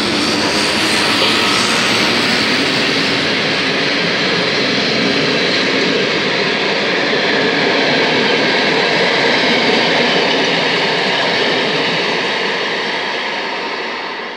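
MÁV class 431 (V43) electric locomotive and its passenger coaches passing close by, a steady loud rumble of wheels on rails that begins to fade near the end as the last coach draws away.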